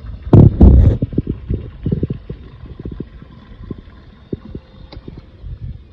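Boat bilge pump discharging the water it has pumped out of the hull, giving an irregular gurgling, spitting run of low splashes as it sucks air. A loud knock sounds about half a second in.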